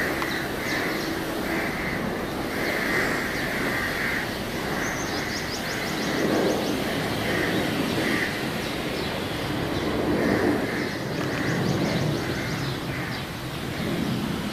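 Crows cawing over and over, with a small bird's fast high trills twice, against a steady outdoor background noise.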